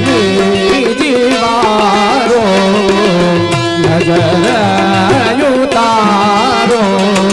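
Indian devotional song: a voice singing an ornamented, wavering melody over held instrumental notes and a steady drum accompaniment.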